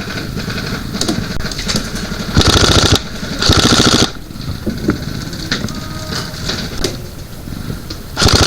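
Two short bursts of rapid full-auto airsoft gun fire, each about half a second, a second apart, with another burst starting near the end.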